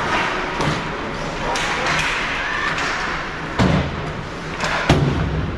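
Ice hockey play around the net, with a steady scrape and hiss of skates and sticks on the ice and two sharp, loud thuds about three and a half and five seconds in, as the puck or players hit the boards, net or pads.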